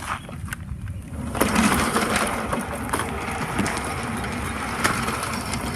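Electric garden-railway model locomotive running along outdoor track, its motor and wheels giving a steady noise with small clicks. The noise comes up about a second and a half in and then holds.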